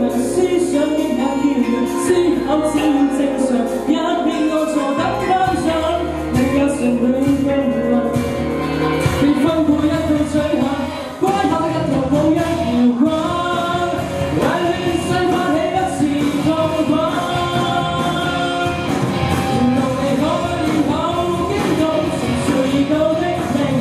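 A man singing a song into a handheld microphone over instrumental accompaniment, amplified through a PA.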